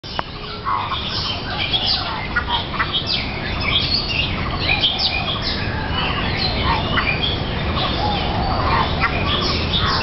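Busy mix of short whistles, squawks and warbled chirps from aviary birds, among them a golden-crested mynah's warbled calls, over a steady low background hum.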